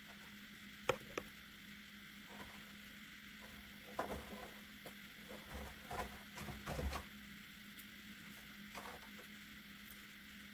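Faint, scattered clicks and light scratching from metal tweezers picking seeds out of a strawberry over a paper towel: two clicks about a second in, a run of scratchy handling sounds midway, over a steady low hum.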